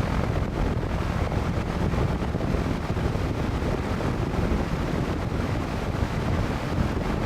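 Vintage AMC metal box fan running on its low speed: a steady, deep rush of moving air, its shaft bearings freshly oiled.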